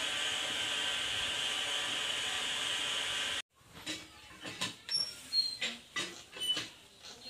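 Steady hiss from a wok of milk heating over a fire in a clay cookstove, cut off suddenly about halfway through. Then come scattered clinks and scrapes of a metal ladle stirring the milk in the wok, with a few short bird chirps.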